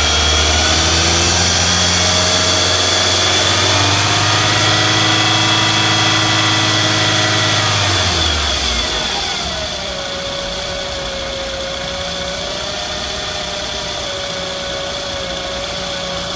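2006 Scion tC's 2.4-litre four-cylinder engine held at raised revs for about eight seconds, then dropping back to a steady idle. A thin high-pitched whine runs over the engine throughout: the weird whizzing that the owner cannot place.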